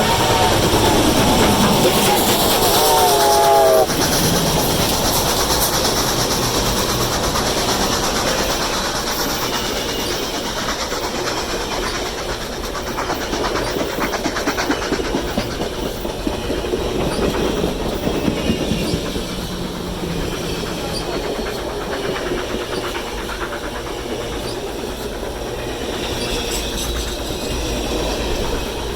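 A steam locomotive whistle sounds as a steam double-header passes; its chord drops in pitch and stops about four seconds in. The train keeps rolling by with a steady rumble and the clatter of wheels on rail joints.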